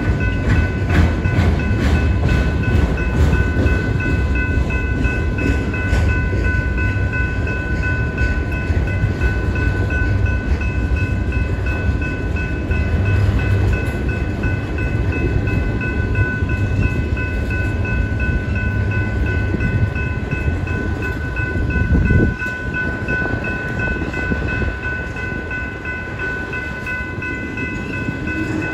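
Autorack freight cars rolling past: a steady rumble and clatter of steel wheels on the rails. Steady high-pitched ringing tones sit over it throughout, and a brief loud low thump comes about 22 seconds in.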